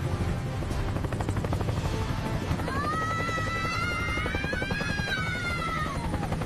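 Helicopter rotor chop, a fast, steady beating that runs evenly throughout. From about two and a half seconds in to near the end, a held, slightly wavering musical tone plays over it.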